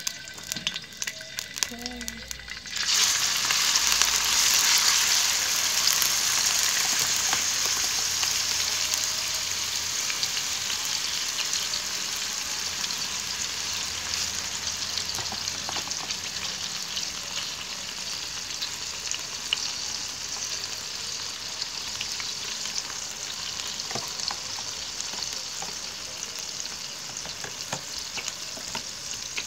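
Chopped fresh, wet squid frying in hot oil. A sudden loud sizzle starts about three seconds in and slowly eases as the frying goes on, with a few light knocks in between.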